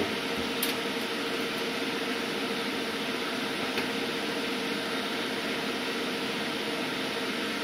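Steady whir of a running fan with a constant hum under it, and a couple of faint ticks.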